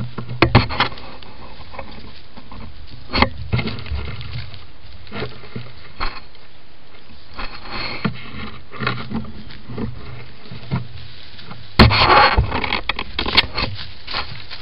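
Langur monkeys handling a plastic camera trap: fur rubbing and scraping over the housing and microphone, with scattered knocks and bumps, loudest in a dense run of scraping and thumps about twelve seconds in, over a steady hiss.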